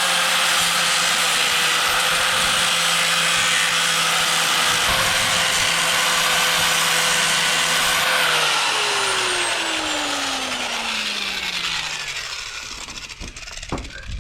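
Angle grinder running at full speed and grinding back a bad weld on a steel trailer frame. About eight seconds in it is switched off and its pitch falls steadily as the disc spins down.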